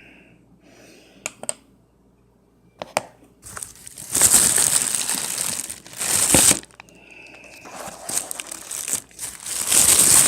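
Paper crinkling and rustling in long stretches, as a paper coin roll wrapper is handled and torn open. A few light clicks come first.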